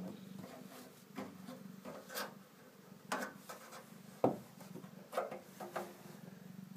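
Scattered scrapes, rubs and small knocks against the metal of an old PC case, the loudest a sharp knock about four seconds in, over a low steady hum.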